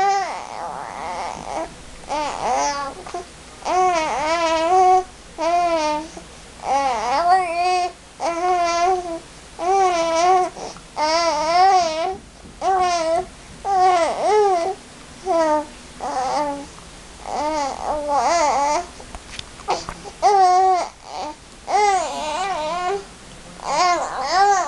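A four-month-old baby cooing and babbling: a long run of short, high-pitched vocal sounds, about one a second, many with a wobbling pitch.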